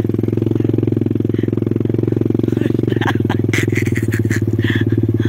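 Quad bike (ATV) engine running at a steady speed close to the microphone, an even, unbroken engine note.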